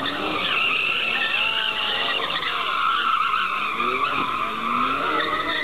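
A car's tyres squealing on hard turns, one long continuous squeal that wavers in pitch.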